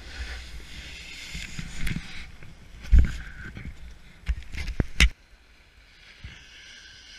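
Snowboard sliding and scraping over packed snow at speed, with wind buffeting the action camera's microphone and several sharp knocks about three to five seconds in. The noise cuts off suddenly just after five seconds as the board comes to a stop.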